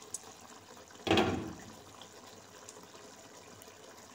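A glass pot lid lifted off with a light click, then a louder knock about a second in as it is set down; under it, the uncovered curry bubbles faintly as it simmers.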